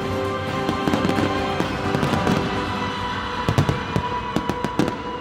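Fireworks going off over a music soundtrack: scattered bangs, then a quick run of sharp cracks from about three and a half seconds in.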